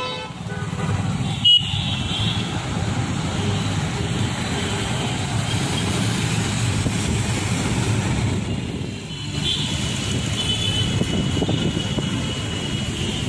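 Steady road and traffic noise heard from inside a moving car, with one sharp click about a second and a half in.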